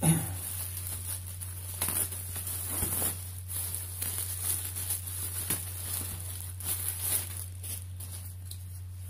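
Clear plastic packaging bag crinkling and rustling in irregular crackles as hands pull it open and slide out a stuffed nylon sack, over a steady low hum.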